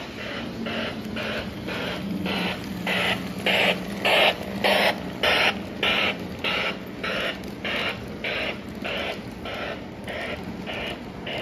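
A Lionel O-gauge model train running past on tubular track: a regular rhythmic clatter, a little under two pulses a second, loudest about four to five seconds in and then easing off. A low motor hum runs under it and fades out about halfway.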